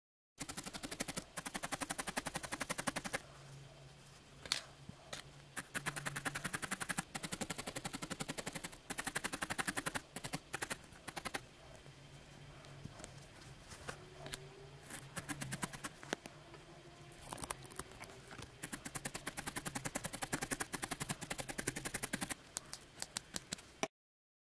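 Felting needle stabbing rapidly and repeatedly into a ball of white wool roving, a fast run of ticks in bursts of a few seconds with short quieter pauses between.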